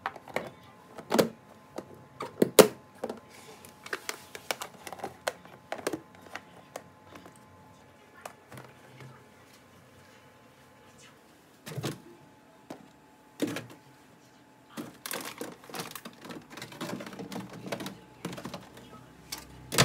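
Plastic food storage containers clicking and knocking as their lids are pressed shut and the boxes are set down and slid onto refrigerator shelves. An irregular series of sharp clicks comes first, then a pause, then a few single knocks and a busier clatter near the end.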